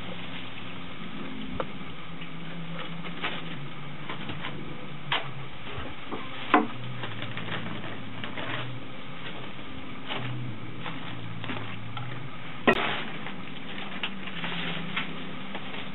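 Plastic protective wrapping being pulled off a wooden bench, crinkling and rustling, with scattered sharp clicks and knocks, two of them louder.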